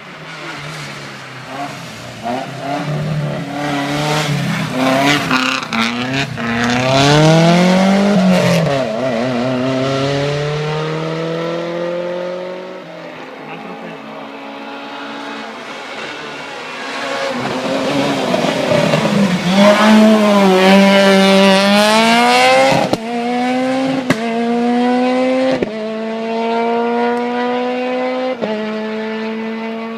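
Rally cars at full throttle passing one after the other, engines revving hard as they come and go. The second car accelerates away through the gears, its engine note climbing and dropping sharply with each upshift, four times.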